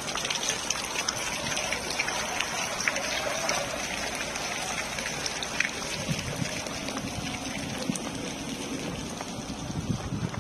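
Water splashing from the jets of a small paved ground fountain, with outdoor street ambience. The splashing is strongest in the first few seconds and fades after that.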